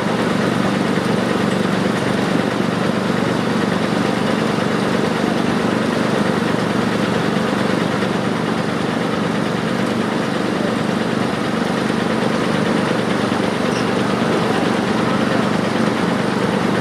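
Construction-machinery engine idling steadily, an even low hum.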